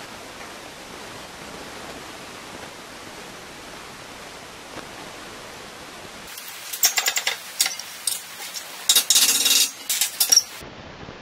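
Steady background hiss, then about six seconds in a few seconds of loud, irregular metallic clicks and scraping as a brass clock gear's steel pinion arbor is handled against and set into the jaws of a steel bench vise. The clatter stops abruptly shortly before the end.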